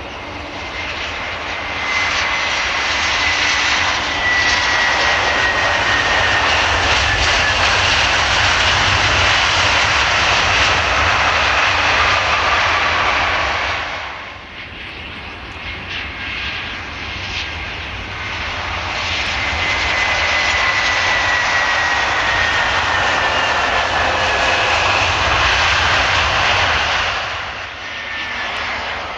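Turbofan engines of Lufthansa Airbus A320-family airliners on the runway, two loud passes one after the other, each with a high whine that slowly falls in pitch. The sound dips briefly between the two passes.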